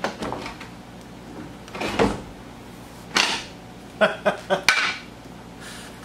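Hollow wooden clunks and knocks from a large handmade wooden padlock being handled, with a thump about two seconds in and a quick run of sharp knocks a little later.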